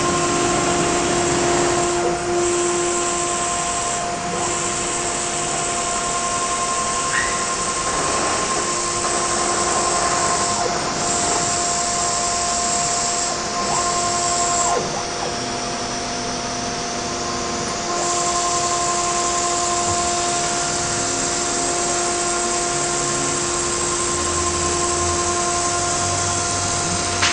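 Multicam 304 M Series CNC router's spindle running as it cuts a sheet: a steady high whine over the hiss of the bit cutting. Several steady tones within it drop out and come back now and then.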